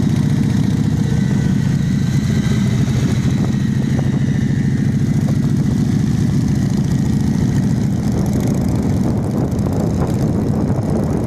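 Several motorcycle engines running steadily at low revs; after about eight seconds the sound gets rougher and less even as the bikes move off.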